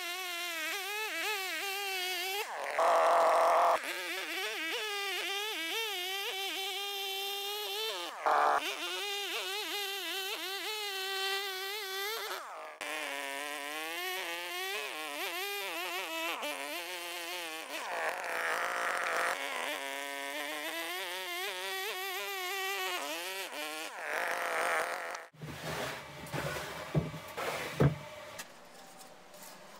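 Resanta petrol chainsaw running at high revs while cutting through birch logs, its buzzing pitch rising and falling, heard in several short cut-together takes. Near the end it gives way to a few quieter wooden knocks as the sawn birch rounds are handled on a bench.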